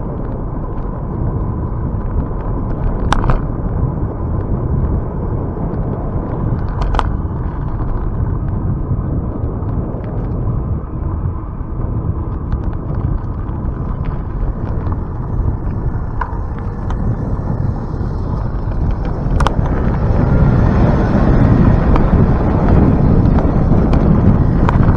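Wind buffeting the microphone of a camera on a moving bicycle, with steady low road rumble and a few sharp clicks. It grows louder for the last few seconds.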